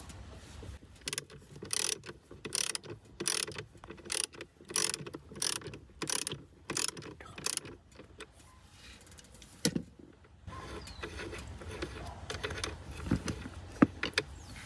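Hand socket ratchet clicking in a regular run of strokes as a 13 mm nut on a vehicle battery terminal is unscrewed. The strokes stop about halfway through, followed by a few scattered clicks.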